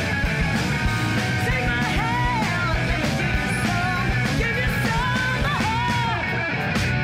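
Rock music soundtrack with a sung or lead melody over driving guitars and drums.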